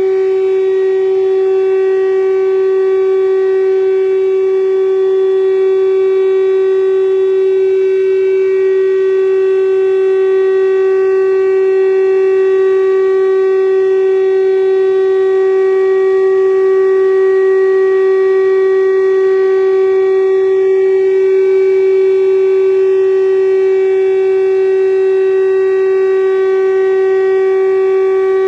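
Fire station siren sounding one long, steady, unwavering tone, loud and held at a constant pitch, as a ceremonial tribute blast.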